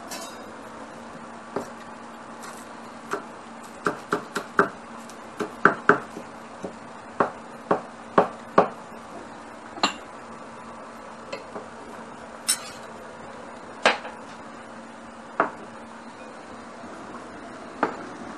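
Kitchenware being handled: a scatter of sharp clinks and knocks as metal pots, lids and dishes are moved around a dish rack, thickest in the first half, over a faint steady hum.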